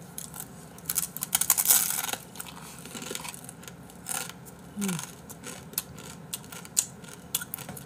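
Dry, uncooked instant ramen noodles crunching and cracking as they are crushed and chewed. There is a dense run of crisp cracks from about one to two seconds in, then scattered crunches.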